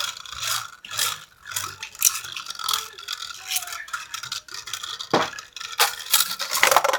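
Beyblade Burst spinning top whirring on the plastic stadium floor, a buzzing rattle as its tip runs across the plastic, with sharp clicks. Several louder clacks come in the last two seconds.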